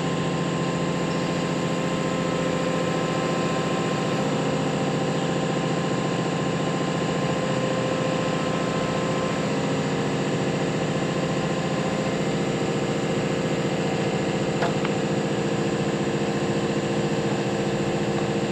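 Track hoe (excavator) engine running steadily at a constant speed.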